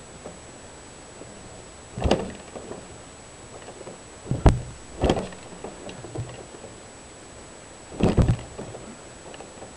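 A few separate thumps from a stopped motorcycle being handled, about four in all, with one sharp click about four and a half seconds in; the engine is not running.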